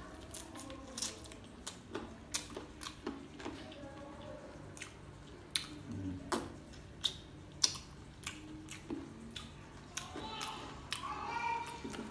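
Close-up eating sounds from a person chewing rice and chicken eaten by hand, with frequent sharp, wet lip smacks and finger-licking clicks.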